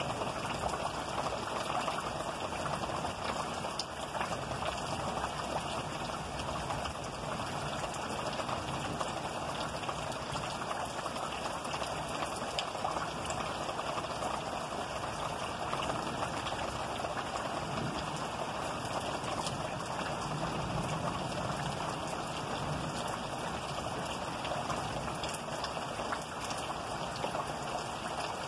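Steady rain falling in a thunderstorm, an even hiss with scattered faint drop taps.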